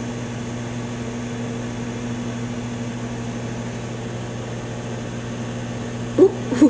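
Microwave oven running, a steady electrical hum and buzz.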